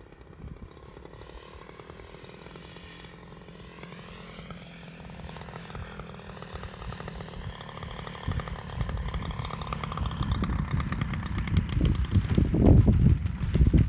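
Radio-controlled Fokker model airplane's engine droning on a low approach to land, growing louder as it nears, its pitch sliding a few seconds in. A low rumble comes in near the end as the plane touches down on the grass.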